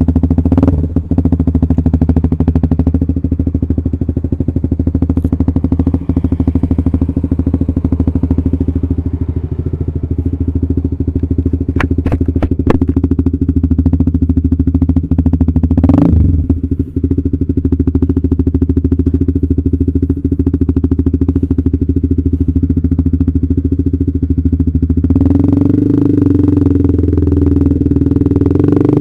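Honda CBR150R's single-cylinder engine idling steadily through an aftermarket KJ Pro Performance exhaust, with a few sharp clicks around the middle; the note changes near the end.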